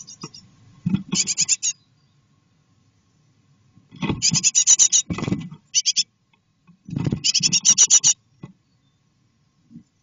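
Great tit nestlings in a nest box giving bursts of rapid, high-pitched calls, about a second each, three times, with scratching and fluttering of the chicks moving on the nest material. The chicks are close to fledging.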